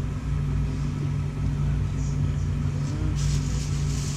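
Steady low machine hum throughout, with a hissy noise joining about three seconds in.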